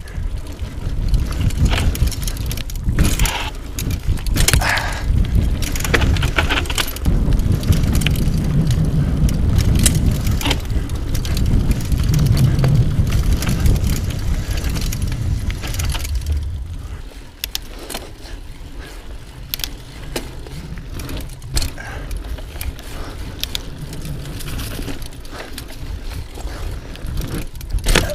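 Mountain bike being ridden over rough ground: a low rumble from the tyres with rapid rattling and clicking from the bike's frame and chain. It eases to a quieter roll about two-thirds of the way through.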